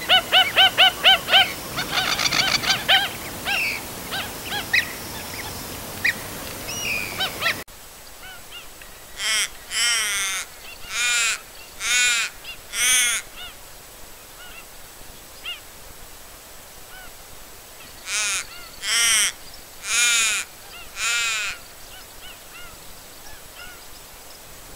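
Wild birds calling: first a fast run of short, repeated calls, then two bouts of five loud, harsh calls about a second apart.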